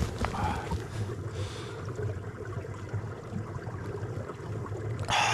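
A man drinking water, then a loud breath out near the end, over a low steady rumble.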